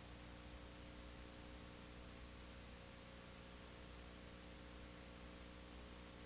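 Near silence: a faint steady hiss with a low, steady hum underneath, the noise floor of a soundless film transfer.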